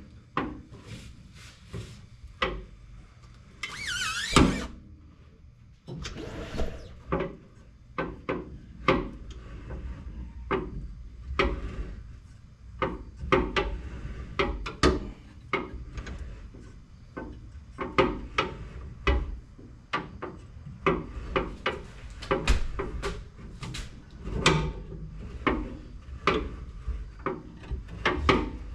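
Irregular clicks and knocks of hand tools and metal parts being handled while a joint on the truck is tightened, with a brief high squeal of something rubbing about four seconds in.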